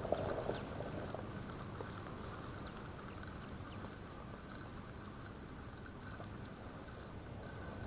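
Spincast fishing reel being cranked steadily, winding line back in with a faint, even mechanical running sound.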